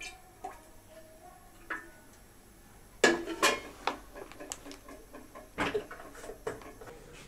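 Steel ladle clinking and knocking against an aluminium cooking pot: a few faint clicks, then from about three seconds in a run of sharp clinks and scrapes.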